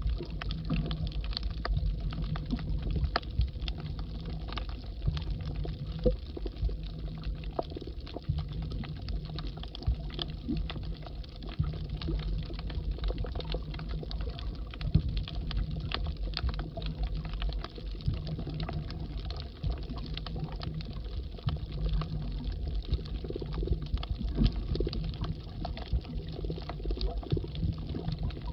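Underwater sound of a submerged camera moving over a coral reef: a steady low water rumble with a dense, irregular crackle of small clicks.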